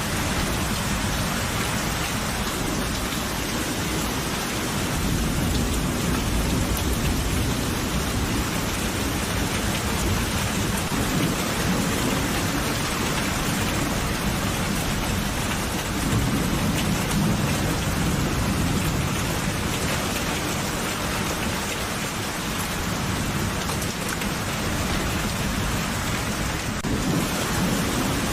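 Steady heavy rain pouring onto surfaces, with low rolling thunder swelling up about five seconds in and again around sixteen seconds in.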